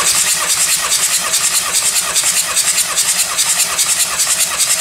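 Starter motor cranking a Volkswagen Transporter T5's 1.9-litre AXB four-cylinder turbodiesel without it firing, for a compression test on the first cylinder. The cranking is steady and rhythmic, about five to six compression beats a second.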